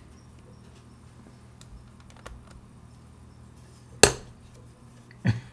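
Two sharp taps of a small hammer on a punch in a watchmaker's staking tool, about a second apart, the first louder and ringing briefly: the blows are meant to break the balance staff's rivet and drive the staff out of the balance wheel.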